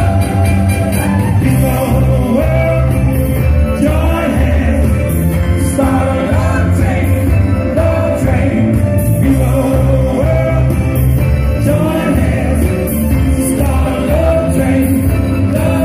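Live band music with a singer, loud and steady, with a driving beat.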